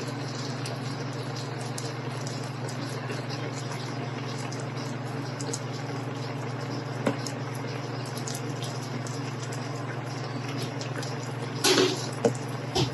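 Creamy evaporated-milk chicken sauce simmering in a pan, its bubbles popping with small scattered ticks over a steady low hum. A few louder noises come near the end.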